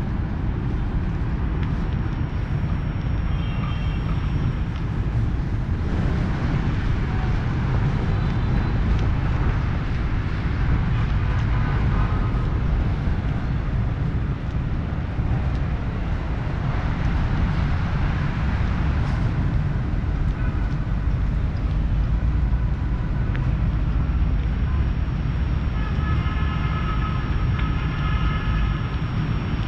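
Steady low rumble of open-air city ambience: wind buffeting the microphone over the hum of distant traffic. A few faint, brief pitched sounds come and go, most of them near the end.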